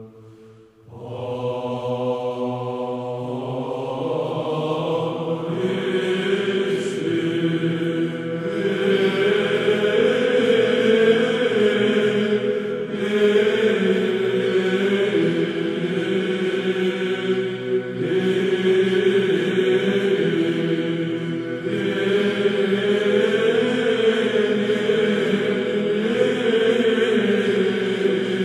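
Greek Byzantine choir chanting a melismatic hymn in plagal second tone over a held low drone. After a brief pause at the start, the voices re-enter and the sound grows fuller about five seconds in.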